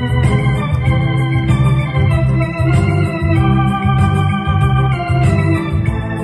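Electronic home keyboard played in an organ voice: held chords and a melody over a steadily pulsing bass line, with a light ticking rhythm from the built-in accompaniment.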